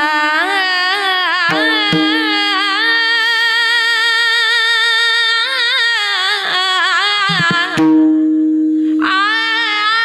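A woman sings a Varkari kirtan melody in long, ornamented held notes with a wavering pitch, over a steady harmonium and a few pakhawaj strokes. About eight seconds in the voice drops out for a second while the harmonium holds a note alone, then the singing resumes.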